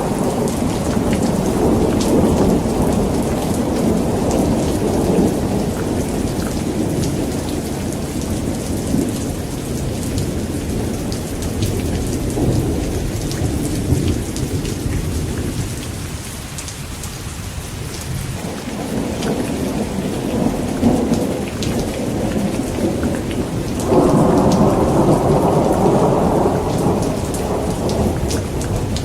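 Heavy rain falling steadily with rolling thunder. The rumble fades around the middle, and a new peal of thunder breaks in sharply near the end.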